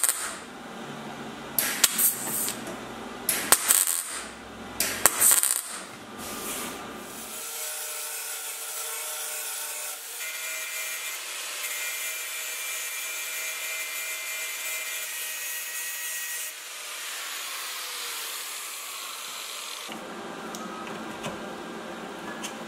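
MIG welder striking short weld bursts on the steel sill panel, three in quick succession about a second and a half apart. Then an angle grinder grinds the welds for about nine seconds, is lifted off, and spins down.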